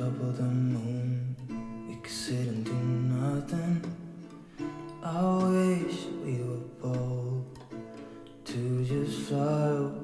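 Background music: a pop song carried by strummed acoustic guitar.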